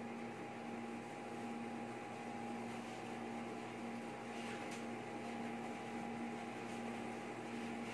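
Steady electrical hum with hiss from a karaoke amplifier and speakers with no song playing, with a couple of faint clicks about four and a half seconds in.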